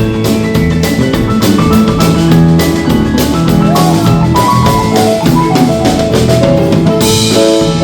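A live roots band playing an up-tempo number: held melody notes over a steady drum-kit beat.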